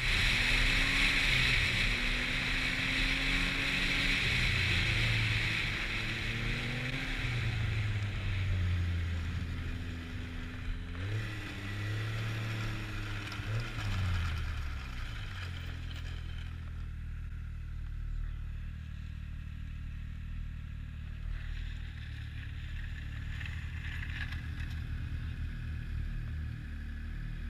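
Snowmobile engine under way, its pitch rising and falling with the throttle, with wind rushing over the helmet-mounted microphone for the first several seconds. About sixteen seconds in the engine settles to a lower, steady idle as the sled stops.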